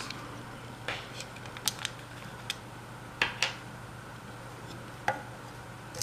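Plastic parts of a stripped-down vacuum cleaner motor clicking and knocking as the hair-clogged plastic air diffuser is worked loose and lifted off the motor housing by hand. Scattered light clicks, with a louder pair about three seconds in.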